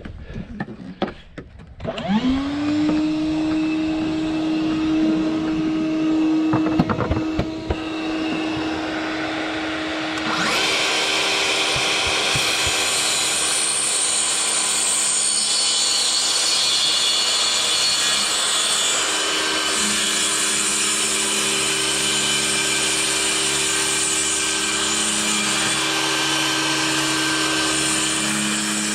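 A track saw's motor spins up about two seconds in and runs steadily. About ten seconds in the blade starts cutting along the deck boards, trimming them back a quarter inch, and the cut runs on steadily.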